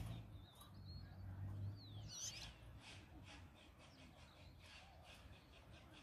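Caged European goldfinches calling faintly: a few quick high gliding notes about two seconds in, then a run of short twittering chirps. A low rumble fades out about two seconds in.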